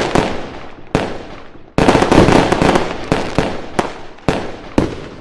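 Fireworks sound effect: a run of bangs with crackling tails that die away, the biggest about two seconds in, then sharp single cracks spaced out and growing quieter toward the end.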